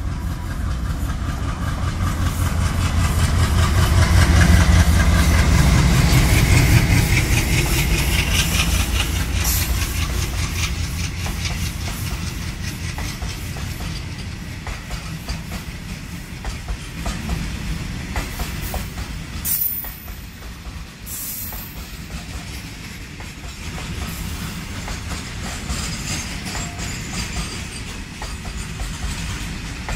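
An Indian Railways freight train of covered box wagons passes close by at speed. The locomotive's low rumble is loudest a few seconds in, then the wagon wheels keep up a fast clickety-clack over the rail joints, with a couple of brief high squeals about two-thirds of the way through.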